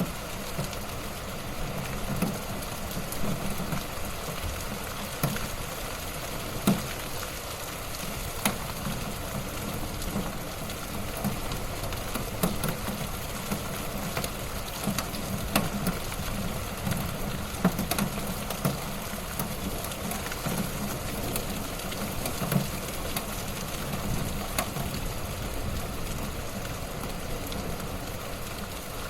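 Light rain falling steadily: a constant hiss of drops, with many sharp drip ticks scattered through it, over a steady low rumble.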